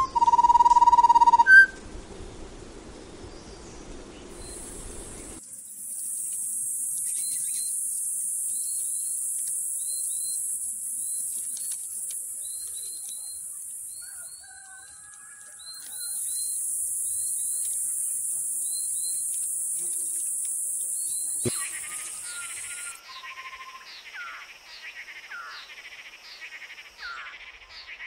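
A short electronic chime tone at the start, then field ambience: a steady, very high-pitched insect buzz that breaks off briefly midway and stops near the end, with short bird chirps repeating over it. Near the end a quicker, rhythmic chirping takes over.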